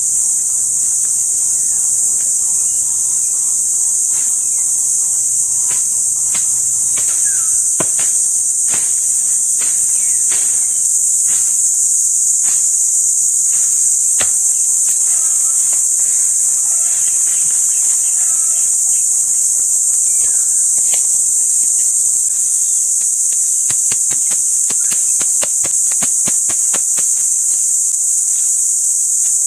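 A dense, steady, high-pitched insect chorus, like crickets, running on without a break. Scattered sharp knocks sound over it, coming faster in a quick series near the end.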